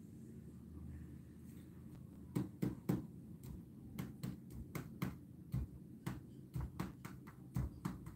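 A run of about twenty sharp, irregular taps or knocks over roughly five and a half seconds, starting about two seconds in, over a steady low hum.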